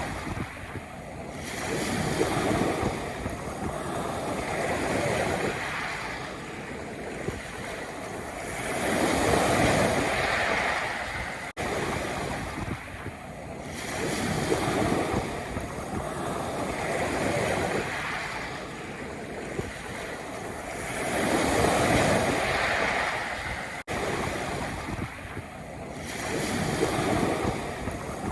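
Sea waves washing in and out on a pebble beach, swelling and ebbing every few seconds. The sound cuts out for an instant twice, at the loop point of the recording.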